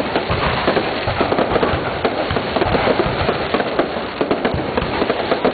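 Fireworks display: a dense, continuous barrage of bangs and crackling from many aerial shells bursting at once, several reports a second with no pause.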